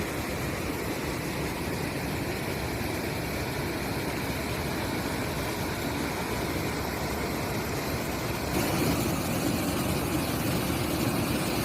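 Waterfall: steady rushing water, which shifts and gets a little louder about eight and a half seconds in.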